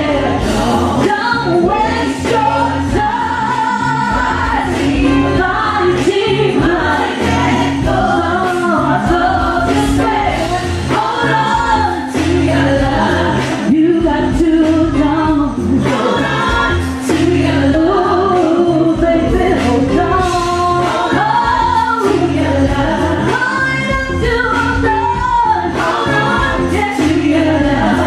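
Live R&B vocal group performance: a female lead singer with backing singers in harmony, over a backing track from DJ decks with a steady beat.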